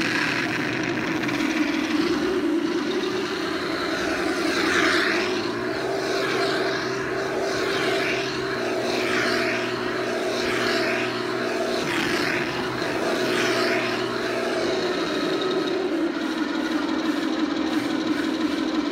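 Radio-controlled Tiger I model tank running, a steady mechanical drone with brief hissy swells every second or two.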